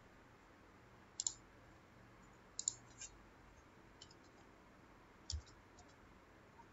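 Faint, sharp clicks at irregular intervals, a few in close pairs: a computer mouse and keyboard keys as digits are typed into a form field.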